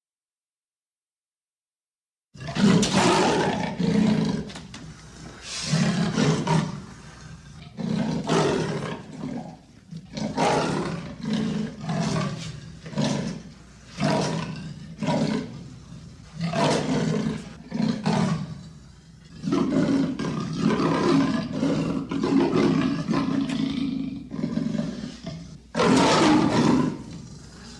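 Leopard calling: a long series of roars, roughly one a second, beginning after about two seconds of silence.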